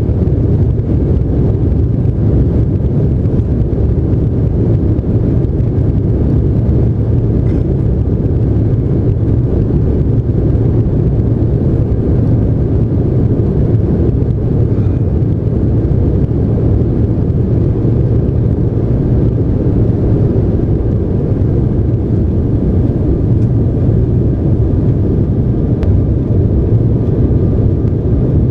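Cabin noise in an Embraer ERJ-195LR during take-off: the GE CF34-10E turbofans running at take-off thrust, a steady low noise that holds as the aircraft leaves the runway and climbs.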